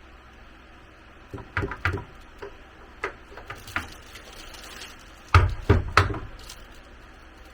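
Knocks and thumps from building work, with no speech: a quick group of three about one and a half seconds in, a couple of lighter single knocks, then the loudest three in quick succession a little past halfway.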